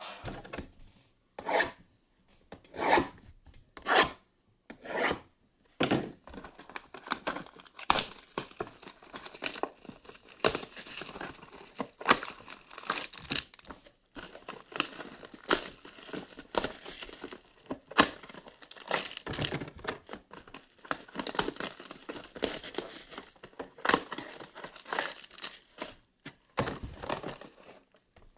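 Plastic wrapping on a box and packs of 2020 Absolute football trading cards being torn open: a string of short tearing strokes about a second apart, then steady crinkling and rustling of plastic.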